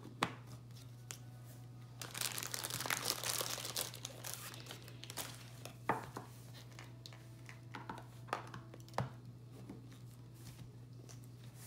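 Crinkling and rustling of plastic toy packaging as a clear plastic LOL Surprise ball is handled and its halves pushed together, with a few sharp plastic clicks, over a low steady hum.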